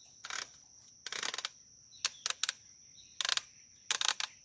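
Metal clicks and clattering from a Winchester SXP 12-gauge pump shotgun as its barrel is fitted to the receiver and the parts are worked, in several short groups about a second apart. The rattle is normal for this gun.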